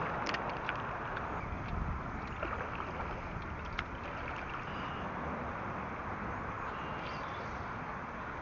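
Steady rush of a fast-flowing river current, with a few light clicks from handling the tackle.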